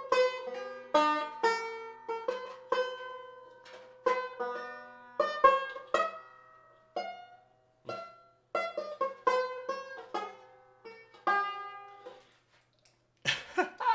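Banjo picked one note at a time in short, halting runs, each note ringing out and fading, with two loud strokes near the end. The banjo is brand new and not yet tuned.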